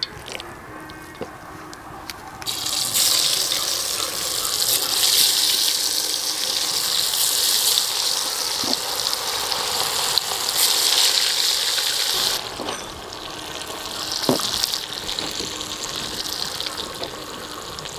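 Masala-coated beef pieces dropped into hot sunflower oil, deep-frying with a loud sizzle that starts about two and a half seconds in and eases a little after about twelve seconds. A couple of faint knocks sound over it.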